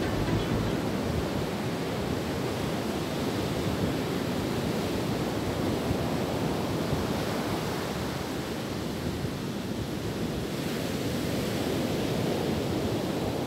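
Ocean surf breaking on the shore: a steady rush of waves, with wind on the microphone.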